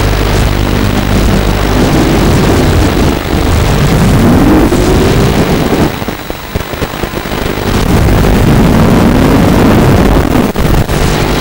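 Walkera F210 racing quadcopter's motors and propellers, loud and distorted with heavy wind rush on the onboard microphone. The motor pitch climbs twice as the throttle is pushed, the sound drops back for a moment about six seconds in, and there is a short crack near the end.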